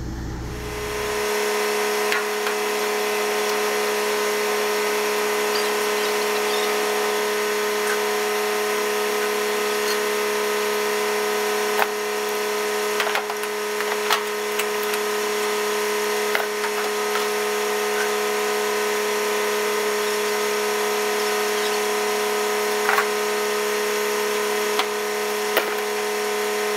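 Transfer pump whining steadily as hydraulic fluid is offloaded from a tanker trailer, with a few short clicks and knocks along the way.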